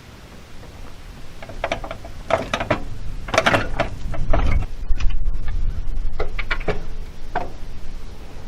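A heavy log being shifted by hand across the cross bunks of a log deck: irregular knocks, clatter and a low rumble, loudest in the middle stretch and easing off near the end.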